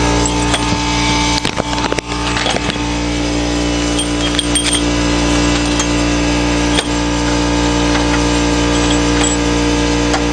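A steady machine hum, like a running motor, with a few scattered metallic clinks and knocks of tools on metal.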